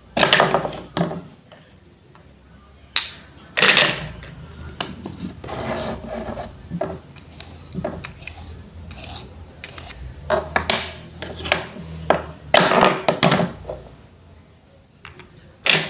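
Wooden play-food being cut apart with a toy knife: repeated short rasping rips as the velcro-joined halves pull apart, with light wooden knocks against the cutting board. About a dozen separate rips and knocks, irregularly spaced.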